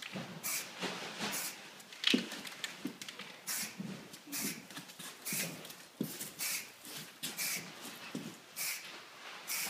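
Aerosol can of marking paint sprayed upside down in short hissing bursts, about one a second, one burst per mark, with footsteps in between.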